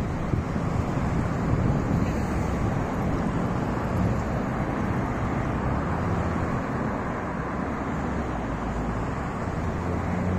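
Steady road traffic noise from cars on the street beside the sidewalk, with some wind on the microphone.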